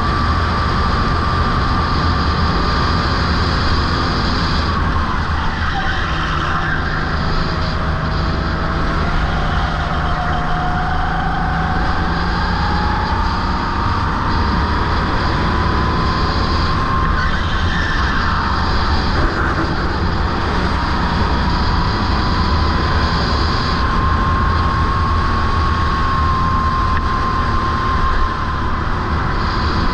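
Go-kart engine running hard at speed, its pitch falling about six seconds in as the throttle comes off, then climbing steadily back over the next ten seconds, with a short dip again later. Heavy wind rumble on the onboard camera's microphone runs underneath.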